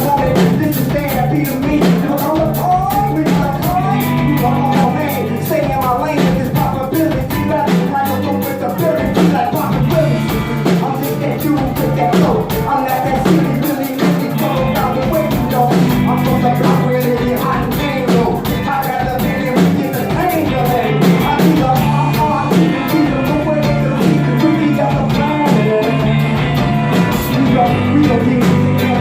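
Rock music with guitar, drums and a steady bass line, and a wavering sung or lead melody above it.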